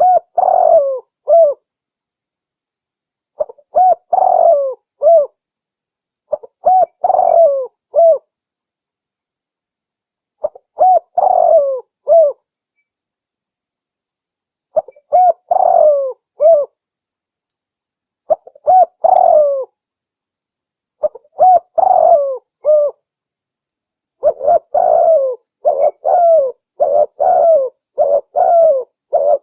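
Spotted dove (cikukur) cooing in repeated short phrases, played as a lure call for trapping the bird, with clean silent gaps between them. The phrases come every few seconds, then run almost back to back over the last five seconds.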